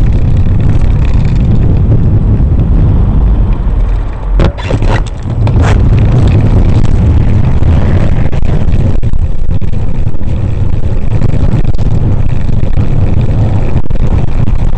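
Steady rumble of wind buffeting the microphone of a bicycle-mounted camera while riding in road traffic. About four to six seconds in, the rumble briefly drops and a few sharp clicks come through.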